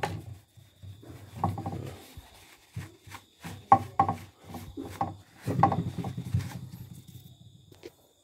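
A wet tissue scrubbing grime off a plastic embroidery-machine housing panel on a wooden bench: irregular rubbing strokes with a few sharper knocks of the panel. It fades out near the end.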